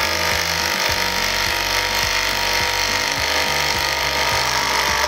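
Cordless power driver driving a heavy-duty hex-head timber screw into hardwood without a pilot hole, running steadily and stopping suddenly at the end. Background music plays underneath.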